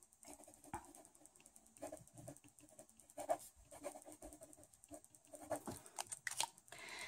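Felt-tip artist pen writing on paper: faint, scattered scratching strokes of the nib. Near the end come a few louder taps and clicks as the hand leaves the paper.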